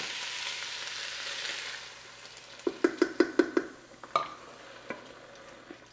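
Beef stock poured into a hot pot of browned ground beef sizzles and hisses, fading out after about two seconds. A quick run of light knocks follows as a wooden spoon stirs the mixture in the pot.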